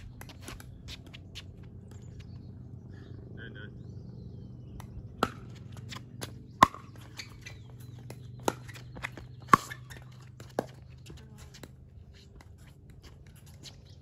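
A pickleball rally: a paddle strikes the plastic ball with a sharp pock about six times, starting about five seconds in, with lighter footsteps and shoe scuffs on the hard court between the hits.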